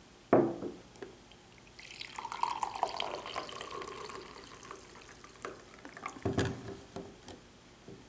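Brewed coffee pouring from a stainless French press into a ceramic mug: a steady splashing trickle for a couple of seconds. It is framed by knocks, the louder one about six seconds in as the press goes back down on the wooden table.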